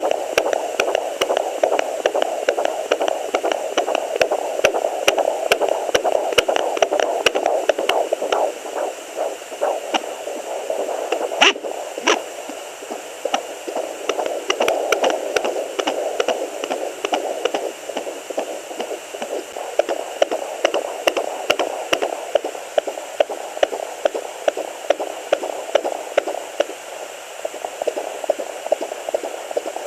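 Home fetal doppler picking up a 17-week fetal heartbeat: a fast, even pulse of a little over two beats a second, around 140 beats per minute, through steady static hiss. A sharp click sounds about eleven seconds in.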